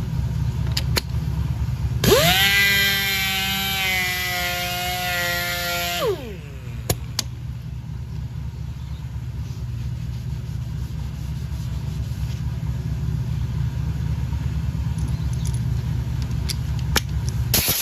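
A power sander spins up with a quickly rising whine about two seconds in, runs steadily for about four seconds, then spins down. Under it a steady low engine drone runs throughout, with a few light clicks, and a hiss starts at the very end.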